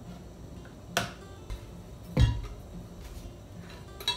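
Plastic water bottles being handled and set down on a table: a sharp click about a second in, a dull thump a little after two seconds that is the loudest sound, and another click near the end.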